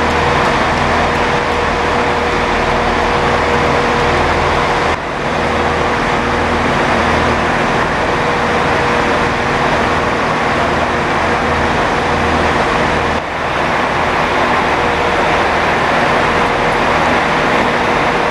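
Diesel multiple-unit trains idling at the platform: a steady engine hum with a pulsing low throb, broken briefly twice.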